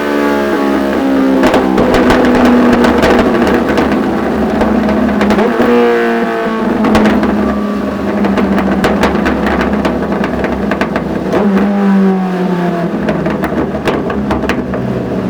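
Suzuki GSF 1250 S Bandit's inline-four engine running loud through a Dominator aftermarket exhaust, its pitch falling over the first few seconds, climbing again around the middle and dropping near the end. Sharp pops come through the exhaust note throughout.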